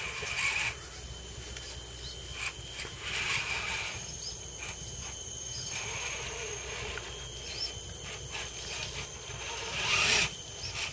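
Tropical forest insects droning in steady high tones, with swells of louder buzzing that come and go every few seconds, the loudest about ten seconds in, and a few short bird chirps.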